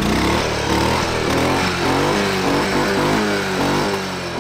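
A vehicle engine revving up and down over and over, its pitch rising and falling.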